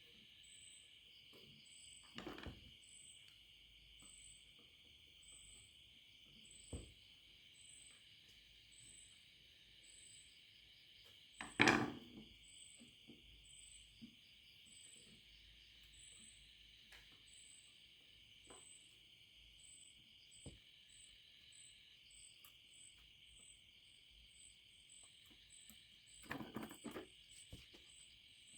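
Scattered light knocks and clicks of tools and parts being handled on a workbench during soldering, the loudest about twelve seconds in and a quick cluster near the end. Under them runs a steady faint high hiss with a soft high chirp repeating about three times a second.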